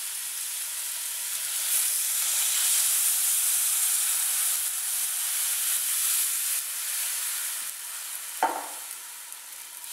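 Seafood sizzling in a hot wok, the hiss swelling loudly about two seconds in as cold water is poured in from a saucepan, then easing off toward the end. A short sharp knock near the end.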